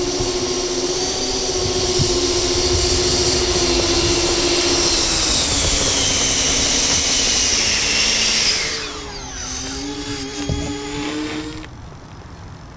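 Twin 70 mm twelve-blade electric ducted fans of a large RC airliner model whining at taxi power, the pitch sagging a little. About eight seconds in they spool down with falling tones and settle to a lower hum, which cuts off near the end.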